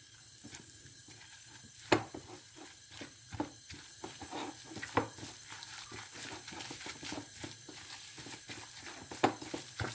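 Silicone spatula stirring grated cassava and egg in a glass bowl: a run of irregular light clicks and scraping knocks against the glass, the sharpest about two, five and nine seconds in.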